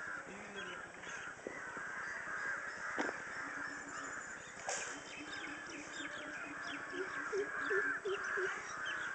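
Birds calling over and over in the open air, many short calls overlapping, with a run of lower repeated notes in the second half.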